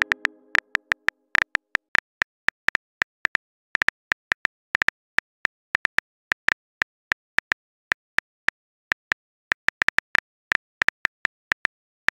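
Phone keyboard typing sound effect: a long run of short, sharp key clicks at an uneven pace, several a second, as a text message is typed out. The tail of a message chime fades out in the first half second.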